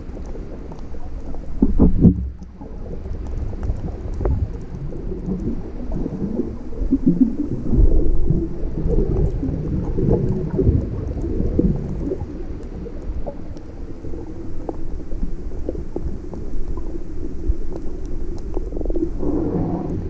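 Muffled underwater noise picked up by a GoPro Hero 5 in its housing: a low, irregular rumble of water moving around the camera, with scattered knocks and crackles, loudest about two seconds in and again about eight seconds in.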